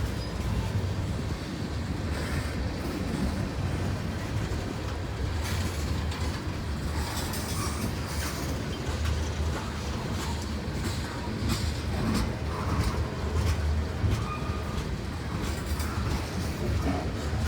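Freight cars of a long train rolling past: a steady rumble with wheels clacking over rail joints and, now and then, a short faint wheel squeal.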